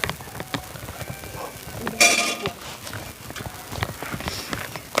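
Irregular knocking and clicking, with a short, loud, high cry about two seconds in.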